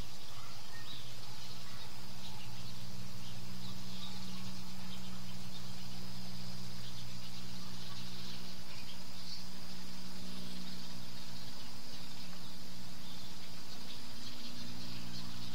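Steady high-pitched chorus of singing insects, typical of late-season crickets, over a steady low hum that shifts slightly in pitch near the end.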